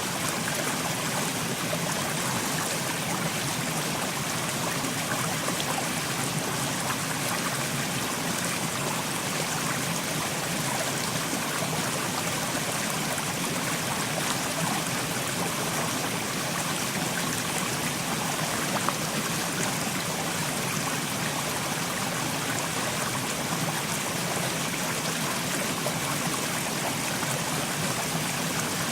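Mountain stream flowing and trickling over rocks, a steady, even rush of water.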